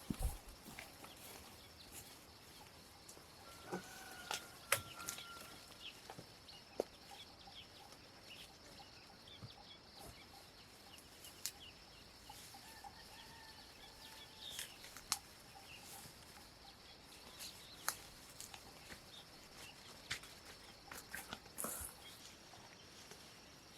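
Chickens clucking faintly, with scattered small clicks and taps.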